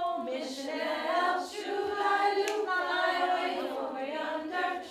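A group of women singing a children's game song together, unaccompanied.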